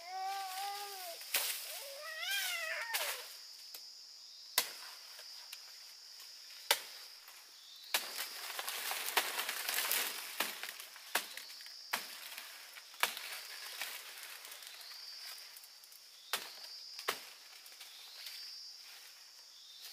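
Sharp blade chops, about nine of them at uneven spacing, over a steady high insect buzz, with a stretch of rustling about eight to ten seconds in. A short high voice or animal call sounds twice near the start.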